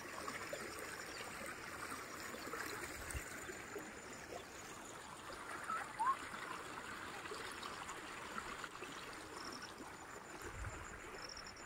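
Shallow floodwater from an overflowing lake running and trickling steadily over the ground and through grass. A short high chirp sounds about six seconds in.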